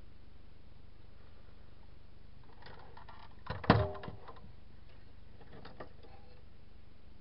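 Workbench handling noises as a drill's battery module is positioned in a small plastic bench vise. A few light clicks and rustles lead to a single sharp knock about halfway through with brief ringing, then lighter handling sounds, all over a steady low hum.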